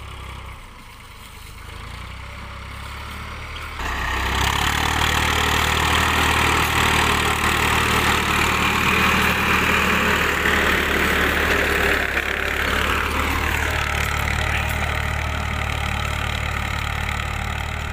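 Farmtrac 65 EPI tractor's diesel engine running steadily while pulling a plough, stepping up in loudness about four seconds in.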